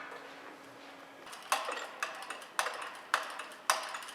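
Sharp metallic clicks or taps, about two a second, each ringing briefly, starting about a second and a half in after a faint low hum.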